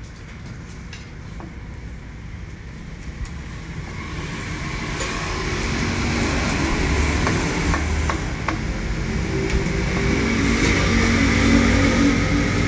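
A motor vehicle's engine running close by, growing louder over several seconds, over a steady hiss of street and kitchen noise, with a few light knocks.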